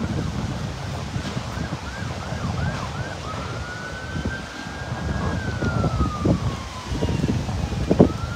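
An emergency vehicle's siren: a quick run of yelps about a second in, then a long wail that holds and slowly falls, sweeping up again near the end. Heavy wind buffets the microphone underneath.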